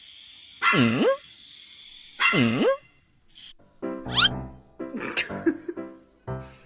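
A small puppy barking twice, two loud barks about a second and a half apart, each dipping in pitch and rising back. Music with evenly repeating notes follows from about four seconds in.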